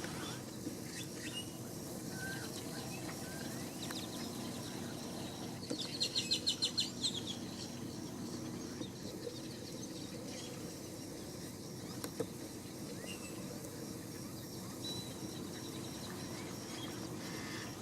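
Birds calling: a quick run of about eight sharp, high notes about six seconds in, with scattered faint chirps over a steady low background hum.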